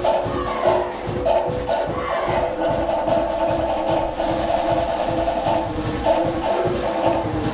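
Cook Islands drum ensemble playing a fast, driving ura pa'u drum-dance rhythm, with rapid strokes on wooden slit drums (pate) over a skin drum.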